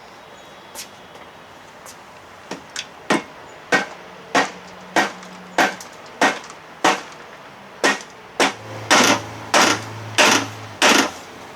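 Hammer blows on the lower unit of a 1968 6 hp Evinrude outboard, striking to knock the seized gear case loose. A few light taps lead into steady strikes about every 0.6 seconds, which get heavier over the last few seconds.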